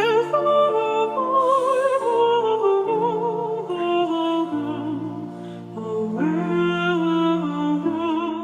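Background music: slow, sustained melody with vibrato over held low chords, in a vocal or operatic style.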